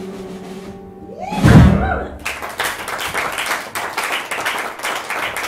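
A jazz quartet's last chord fades out, a loud sudden cry or hit comes about a second and a half in, and then the audience claps and applauds.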